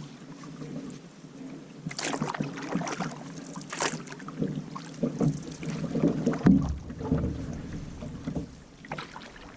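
Kevlar canoe being paddled along a shallow creek: irregular paddle splashes and knocks against the hull, with a brief low rumble about six and a half seconds in.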